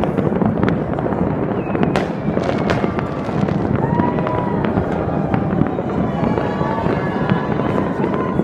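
Many New Year fireworks going off across a city at once: a continuous dense crackle of distant bursts with frequent sharper bangs.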